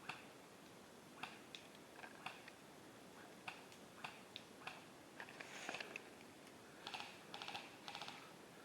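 Faint, irregular small clicks and crackles over low background hiss, with a quick run of clicks about seven to eight seconds in.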